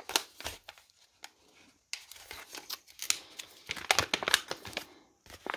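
Cream paper toolkit pouch being torn open at its top and handled: an irregular run of crackling and rustling, busiest in the second half.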